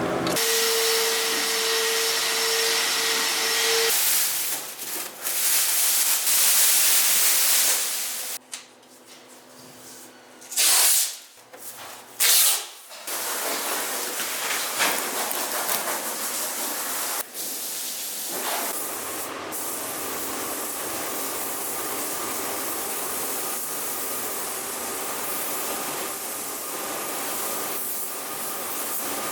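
Body-shop air tools working on a car: a steady hiss with a steady whine in the first few seconds, then two short loud blasts of hiss near the middle and a steady rushing noise after them.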